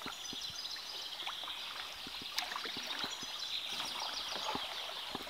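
River water rippling and splashing around a kayak as it is paddled, with scattered small drips and knocks from the paddle.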